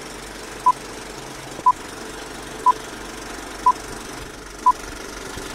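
Electronic countdown beeps: five short, identical beeps one second apart, over a steady background noise.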